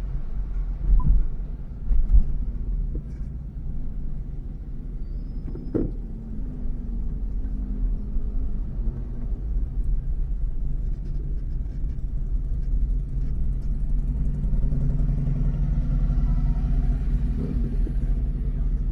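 Motorcycle engine running steadily under way, with a low rumble. There are two sharp thumps about one and two seconds in, and the engine note grows a little stronger near the end.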